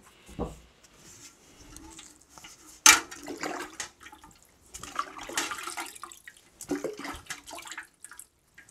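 Water sloshing and splashing in a galvanized metal bucket as a small piece of closed-cell foam is dunked in it, with one sharp splash or knock against the bucket about three seconds in.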